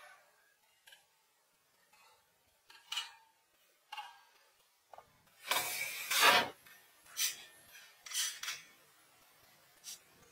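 Boards being handled: scattered light clicks and knocks, with a louder scraping, rustling stretch about halfway through, followed by a few sharper knocks.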